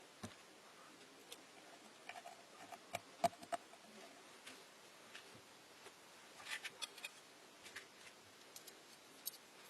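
Scattered small clicks and taps of hands handling parts and tools, with the sharpest one about three seconds in and a quick cluster of clicks a little past the middle.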